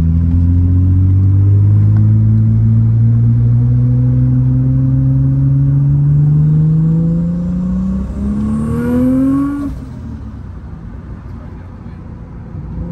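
Big-single-turbo built 2.7 L V6 of a 2001 Audi B5 S4 Avant heard from inside the cabin, pulling under load with the revs climbing steadily for about eight seconds. The revs then rise more quickly for a second or two before the throttle is lifted near ten seconds in, and the engine drops back to a quieter cruise.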